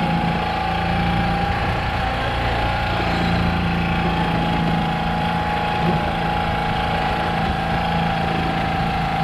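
An engine aboard a fishing boat running steadily: a constant low hum with a steady higher whine over it.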